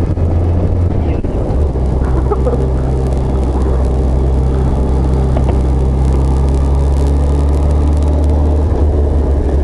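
Motorcycle engine running at a steady low note while climbing a winding mountain road, heard from the rider's helmet with road and wind noise.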